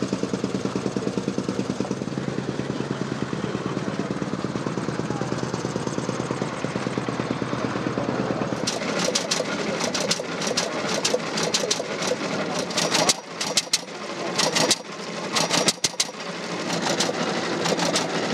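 A veteran motorcycle's engine idling with an even, fast beat. About nine seconds in it gives way to a rapid, uneven crackle of sharp clicks, with a couple of brief gaps.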